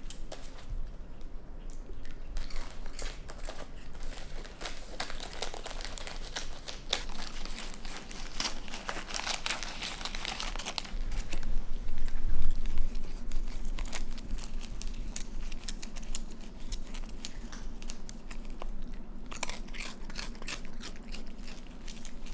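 A raccoon rummaging in a Goldfish cracker carton, crinkling the carton and its foil inner bag, with crunching and chewing as it eats the crackers. The crinkling is busiest and loudest around the middle.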